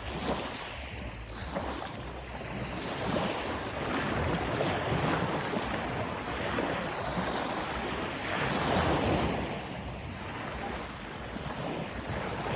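Sea waves washing in and drawing back, the rush swelling and easing about every four to five seconds.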